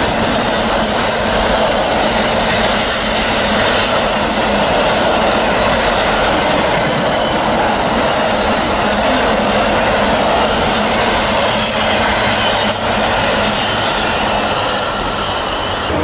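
Railroad cars rolling past on the track: a steady, loud rumble of steel wheels on rails, with scattered clicks from the rail joints.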